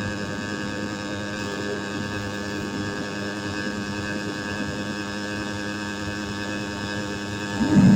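Motorbike engine running steadily with its exhaust removed, giving an even drone. A brief louder surge comes near the end.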